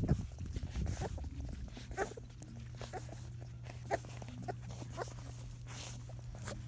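Three-week-old Labrador puppies suckling at their mother, with short wet smacks and gulps every second or so over a steady low hum. They are guzzling milk after a big let-down.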